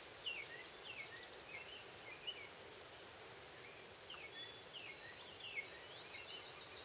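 Small birds chirping in short, scattered calls, with a fast trill starting about six seconds in, over a faint steady outdoor hiss.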